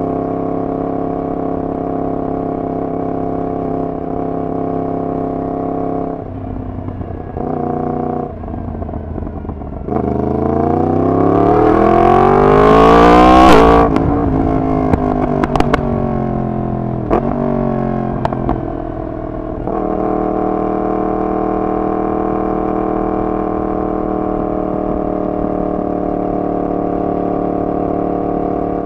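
Yamaha MT-10's crossplane inline-four with a de-catted full exhaust system, running at a steady engine speed, then revving up hard in a long rising pull about ten seconds in. The revs drop suddenly near the peak, falling away with a few sharp cracks, before the engine settles back to a steady tone.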